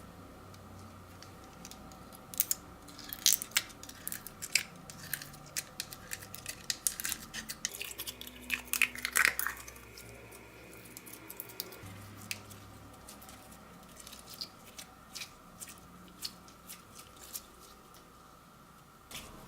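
Slime being squished and stretched by hand, giving rapid sticky clicks and crackling pops. They come thickest in the first half and turn sparser and quieter near the end.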